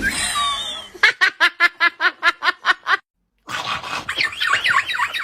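Person laughing hard in a rhythmic string of short ha's, about four to five a second. After a brief break, a run of quick, high cries, each falling in pitch.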